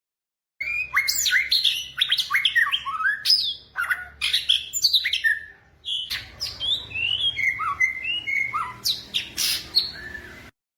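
A flock of flamingos calling: a busy chatter of many short, overlapping chirps, most falling in pitch. It starts abruptly, breaks off briefly about six seconds in, and cuts off suddenly near the end.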